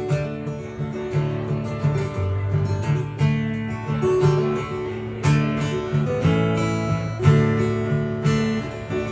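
Solo acoustic guitar strummed in a country-folk instrumental break, with sharp chord strokes and ringing notes.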